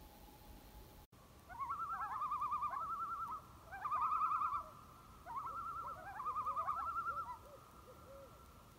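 Common loon giving its tremolo call, a rapid quavering laugh, in three bouts starting about a second and a half in.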